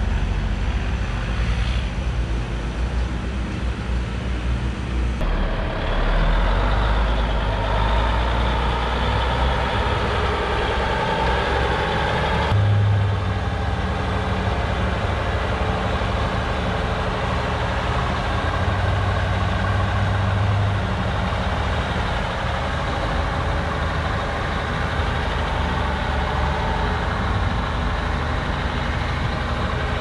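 AM General M923 5-ton 6x6 army truck's diesel engine running steadily under load as the loaded truck pulls uphill, its sound changing abruptly about five and twelve seconds in.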